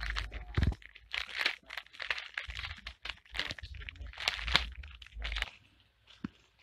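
A pet rat gnawing and tugging at the crinkly plastic wrapper of a pack of Reese's Big Cups, a run of crackling crinkles and crunches in bursts that stops a little over five seconds in.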